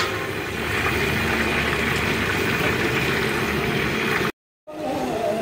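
Food cooking in a pot, a steady bubbling hiss that stops dead for a moment near the end.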